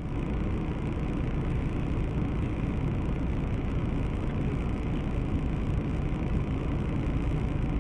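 Steady low rumble and hiss of a car interior, picked up by a dashcam in a stationary car.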